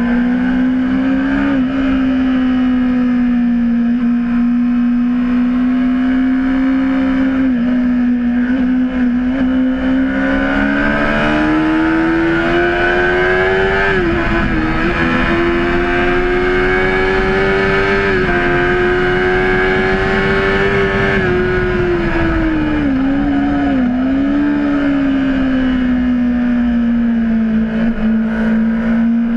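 Honda CBR600RR's inline-four engine running hard at high revs. Its pitch climbs, holds high through the middle, then falls away, with several brief dips in revs, over a steady rushing noise.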